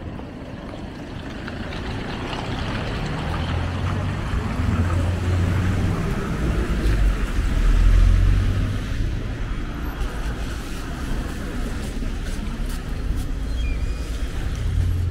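Street traffic on a wet road: cars passing with tyres hissing on the wet surface and a low engine rumble, which swells to its loudest about eight seconds in and then eases off.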